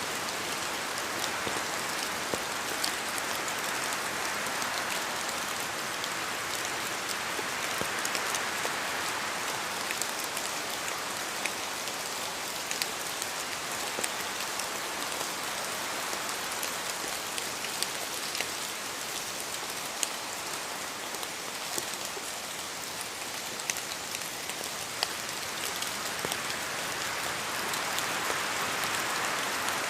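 Steady rain falling in a forest, an even hiss with many separate drops ticking, which the title puts down to drops falling from the trees. The hiss swells and eases slowly, louder about a quarter of the way in and again near the end.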